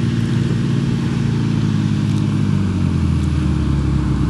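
Engine of the vehicle moving a tiny house, running steadily close by, its pitch easing lower about three seconds in.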